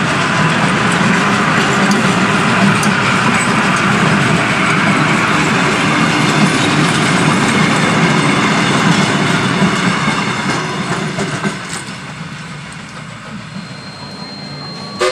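Wheels of heritage passenger carriages rolling past close by, a steady rumble with a clickety-clack over the rail joints. It fades away over the last few seconds as the train moves off.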